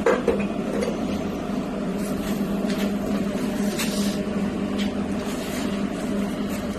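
Steady low mechanical hum with a few faint knocks and handling noises.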